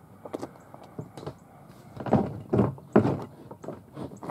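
A series of irregular knocks and thuds, about eight in all, the two loudest about two and three seconds in.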